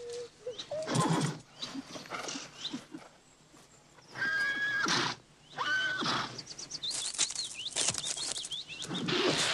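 Horses neighing, with two long whinnies about four and six seconds in, shorter calls and scattered hoof sounds between them. A rush of noise builds near the end.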